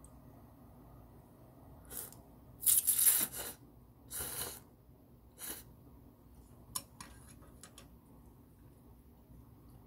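Ramen noodles slurped in several short noisy bursts, the loudest about three seconds in, followed by a few light clicks around seven seconds.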